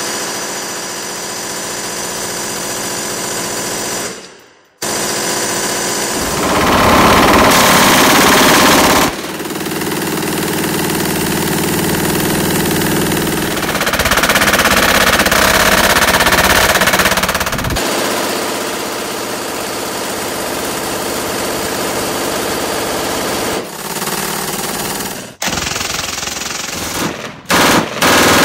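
MG-42-pattern belt-fed machine guns firing long, continuous bursts at their very high rate of fire, about 1,500 rounds a minute, in several clips back to back. The firing breaks off briefly about four seconds in and again a few times near the end, then starts again.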